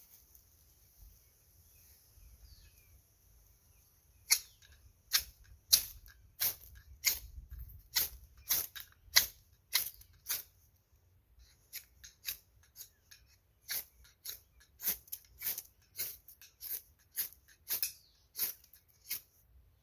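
Ferrocerium rod being scraped hard with a striker, a run of short rasping strikes about one or two a second beginning about four seconds in, with a brief pause partway: throwing sparks onto tinder to light a fire.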